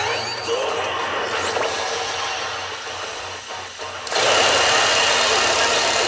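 P北斗の拳9闘神 pachinko machine playing its reach-presentation effects: a dense, rattling hiss under faint music, which jumps much louder about four seconds in.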